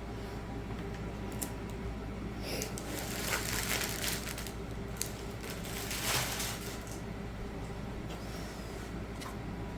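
Rustling and crinkling from handling the kit, loudest a few seconds in and again past the middle, with a few light clicks over a steady low hum.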